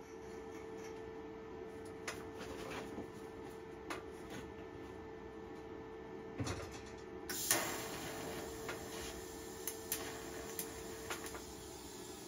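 TIG welding set humming steadily, with a brighter hiss coming in about seven seconds in, among a few light clicks and knocks as the torch is handled against the laser-cut steel frame.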